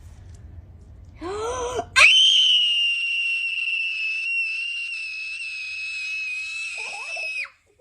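A girl screams in surprise on being shown a bearded dragon. A short voiced sound comes about a second in, then one long, high-pitched scream held at a steady pitch for about five seconds before it cuts off suddenly.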